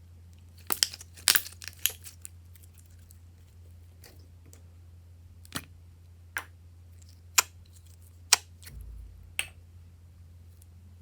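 Slime being squeezed and pressed by hand, giving sharp clicking pops: a quick cluster about a second in, then single pops roughly once a second.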